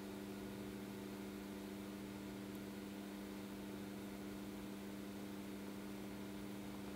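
Steady low hum of several unchanging tones over a faint hiss: quiet room tone.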